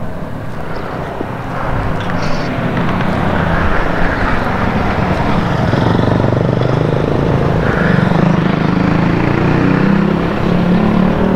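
Motorcycle engine running while riding, getting louder about a second and a half in and then holding a steady note.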